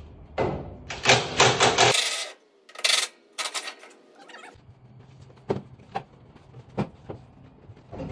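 Cordless drill-driver running in several short bursts, backing fasteners out of the truck's front sheet metal near the headlight. Scattered sharp metal clicks and clinks follow in the second half.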